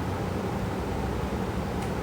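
Steady, even hiss with a low rumble, the kind of constant background noise a fan or air conditioner makes, with no rise and fall of snoring breaths. A faint tick comes near the end.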